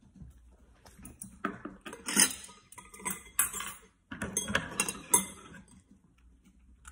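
Utensils clinking and tapping against dishes on a table in a run of short clatters, loudest about two seconds in and again about five seconds in.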